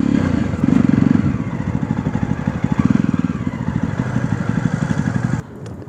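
Jawa 42 motorcycle's single-cylinder engine running at low speed, with a steady, even pulse of firing strokes. The sound stops abruptly about five and a half seconds in.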